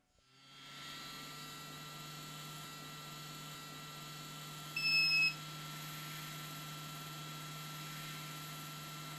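Best BST-863 hot air rework station's blower starting as the handpiece is lifted from its stand: a hiss of air that rises over the first second, then runs steadily with a low hum. About five seconds in, the station gives a single half-second beep.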